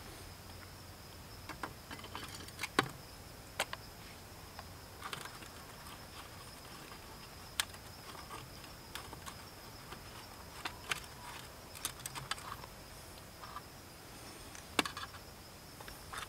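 A steady, high-pitched insect trill runs through, with a scattering of sharp clicks and ticks on top of it.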